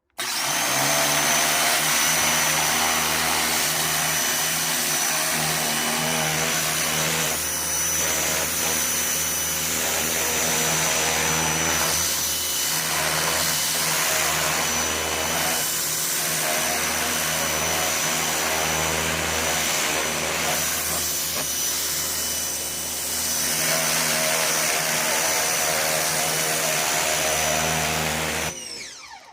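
Ryobi 2000 psi electric pressure washer running with the jet nozzle fitted: a steady motor hum with a high whine over the hiss of the water jet. It starts abruptly and cuts off near the end.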